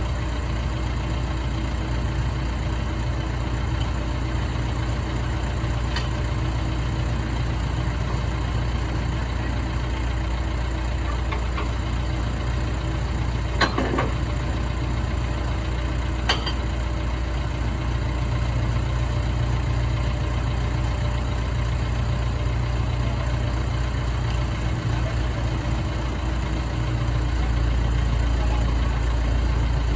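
Engine on an old drill rig idling steadily, with a couple of sharp clicks midway and a slight rise in level near the end.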